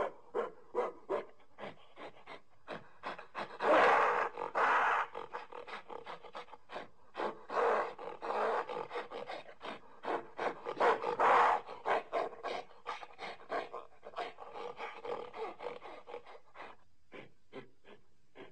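Primate calls: a fast run of short, breathy pulses, several a second, broken by louder, longer cries about four, seven and eleven seconds in.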